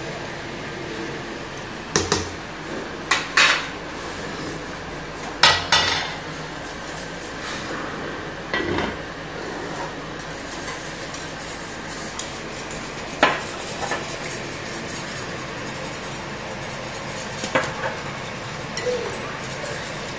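Cookware clattering on a gas hob: a spoon and a whisk knocking and scraping against stainless steel saucepans while a tomato sauce is stirred and a béchamel whisked, in a handful of short clinks and knocks over a steady background hiss.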